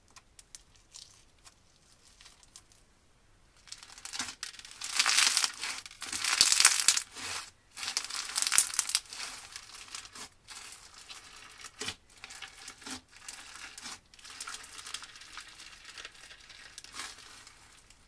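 Clear slime packed with crunchy bits crackling and crunching as hands press and knead it, after a few faint sticky clicks. The crackling starts about three and a half seconds in, is loudest for the next five seconds, then goes on more softly.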